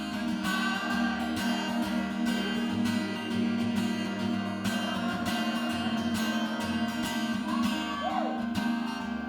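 Acoustic guitar strummed in a steady rhythm, sustained chords ringing between the strokes, in an instrumental gap between sung lines of a live solo acoustic song.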